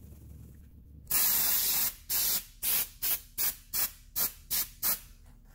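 Aerosol can of white lithium grease spraying onto a wheel hub face before the wheel is refitted. One long hiss about a second in is followed by about eight short spurts.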